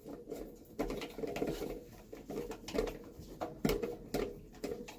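Irregular light knocks, clicks and scrapes of a garbage disposal's parts and fittings being handled and tightened by hand during installation.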